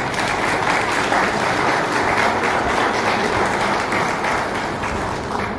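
Audience applauding, a steady crowd of clapping hands that dies away near the end.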